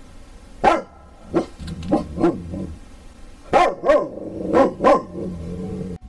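Dog barking: about eight single barks in two groups of four, the first group spread over the first couple of seconds and the second coming faster near the middle and end.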